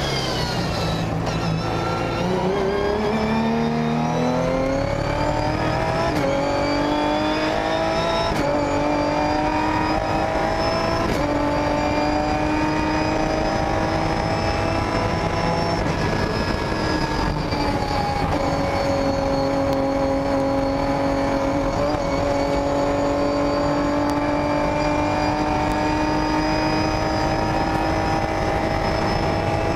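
Ginetta G50 GT4 race car's 3.5-litre V6 heard from inside the cockpit, accelerating hard through the gears. The engine note climbs and drops at quick upshifts about 6, 8 and 11 seconds in. It then holds high revs, dips around 16 to 18 seconds in, and runs steady at full throttle in a high gear with a slow rise in pitch.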